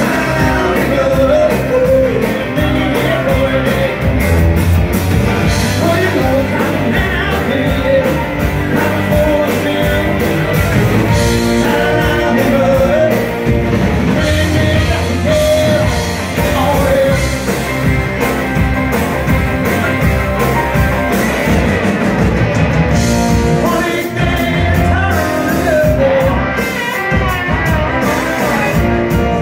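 Southern rock band playing live: two electric guitars, bass guitar and a drum kit, with a male lead vocal singing over them.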